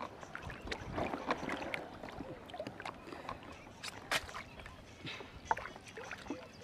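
Water sloshing and small splashes around a person standing in a flooded reservoir, mixed with irregular sharp clicks and rustles, the strongest a little after four seconds in.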